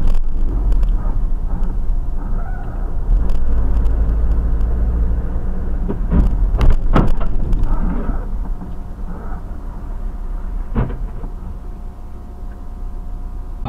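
Truck cab interior noise while driving: a steady low engine and road rumble, with a few sharp knocks, the loudest about six to seven seconds in.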